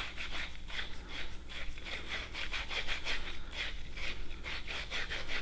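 Rolled-up plumber's sanding cloth scrubbing the inside of a copper sweat coupling in quick, repeated scratchy strokes, several a second. The fitting is being scoured clean so the solder will bond.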